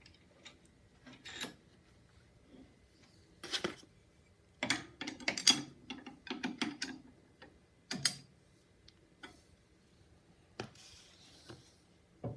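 Metal parts being handled on a table saw arbor: irregular clinks and rattles as the arbor nut is threaded on over the flange and gauge disc and snugged down. The sounds come in scattered single clicks, with a busier run of clatter about halfway through.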